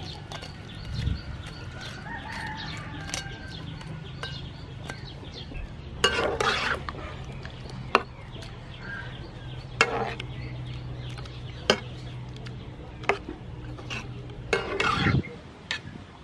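Metal ladle stirring mussel meat in a pan of boiling water, clinking and scraping against the pan every second or two over a steady low hum. Chickens cluck in the background.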